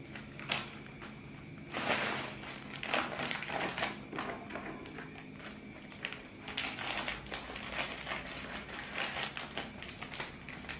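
Plastic kerupuk cinta cracker packets crinkling in irregular bursts as they are handled and cut open with scissors, over a faint steady hum.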